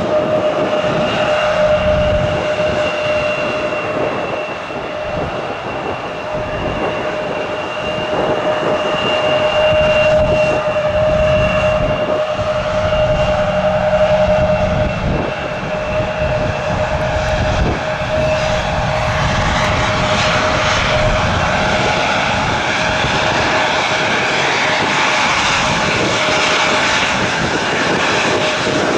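Airliner engines running steadily with a whine that holds its pitch, under a dense rush of engine noise. Uneven low buffeting of strong wind on the microphone runs underneath.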